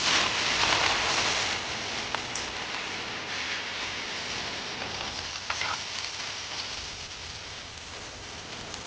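Food sizzling in hot oil, loudest as it starts and slowly dying down, with a few light clicks of utensils.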